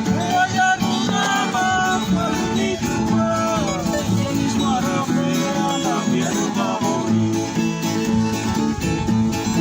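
Papua New Guinea string band music: acoustic guitars strummed in a steady rhythm under a sung, sliding melody line.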